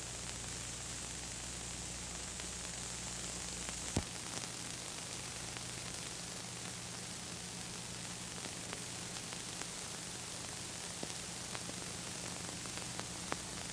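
Steady hiss from a silent film soundtrack, with a low mains hum under it. A sharp click comes about four seconds in, where the deepest part of the hum drops away, and a few faint ticks and one more click follow near the end.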